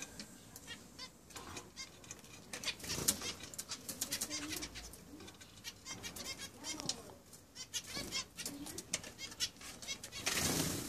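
A group of zebra finches chirping: many short, quick calls one after another, thickest about three seconds in and again near the end.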